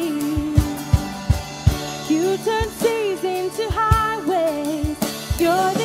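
Live worship band playing: a woman and a man singing a melody over keyboard, acoustic guitar and a drum kit that keeps a steady beat.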